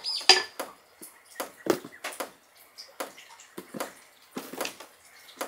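Nutshells being cracked and picked with small metal hand tools: an irregular string of sharp clicks and knocks.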